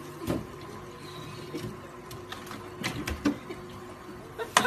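A puppy's paws and claws scrabbling and knocking on plastic refrigerator shelves and drawers as it climbs in: irregular clicks and knocks, loudest near the end, over a steady faint hum.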